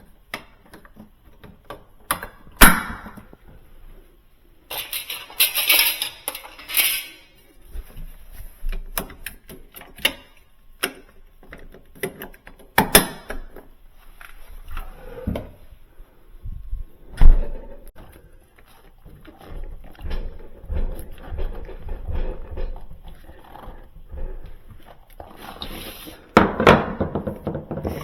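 Handling noise from a built-in refrigerator being pushed back into its cabinet opening and levelled: scattered knocks and thumps, two of them loud single knocks, with stretches of scraping and rustling.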